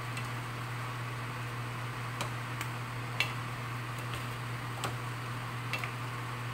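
A cooking spoon knocking and scraping against a stainless steel pan while chicken livers and vegetables are stirred, giving about eight scattered sharp clicks over a steady low hum.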